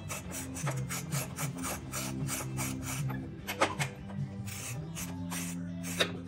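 Background music with a steady beat: a quick, rasping percussion pattern over a bassline that changes notes every second or so.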